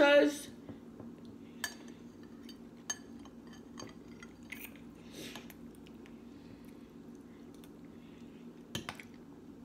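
A metal spoon clinking and scraping now and then against a glass bowl of oatmeal as it is stirred and scooped: a few soft, separate clicks spread over several seconds, with a small cluster near the end.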